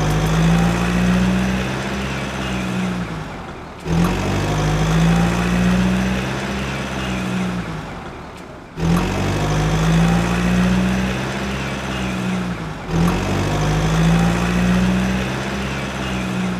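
Truck engine sound revving up abruptly, holding a steady high rev, then winding down. It repeats in four near-identical cycles about four seconds apart, like a looped sound sample.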